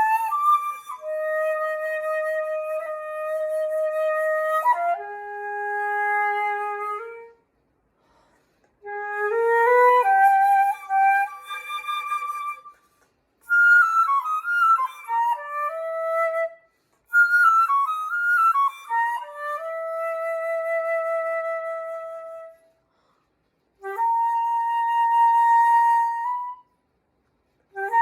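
Solo flute practising slow phrases of long held notes, broken by quick runs of notes, with short pauses between phrases.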